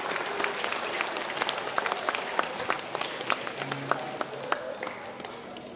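Crowd applauding, many hands clapping, thinning out and fading towards the end.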